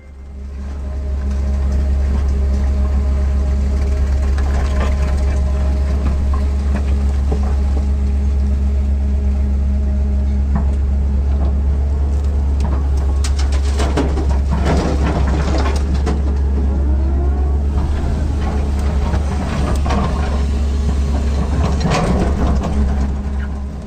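L&T-Komatsu hydraulic excavator's diesel engine running steadily, heard from inside the cab. About halfway through and again near the end, the engine note shifts under hydraulic load and the steel bucket clatters and scrapes through soil and rock.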